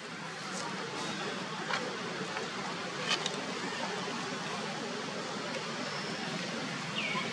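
Steady outdoor background noise with a low hum, typical of distant road traffic, with a few faint soft clicks and a brief high falling squeak near the end.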